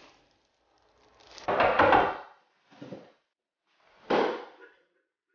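A few knocks and rattles at a wooden door, separated by short silences; the sharpest comes about four seconds in.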